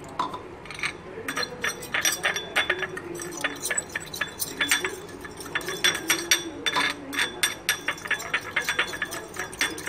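Metal fork whisking cornflour and water in a ceramic bowl, mixing a slurry. The tines clink rapidly against the bowl, several clinks a second starting about a second in.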